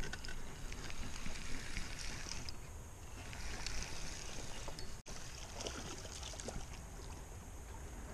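Steady rush of wind on the microphone, with faint clicks from a spinning reel being cranked as a hooked walleye is reeled in.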